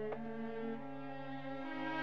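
Orchestral music bridge ending a radio drama scene: soft, held chords, with new notes entering one after another near the start.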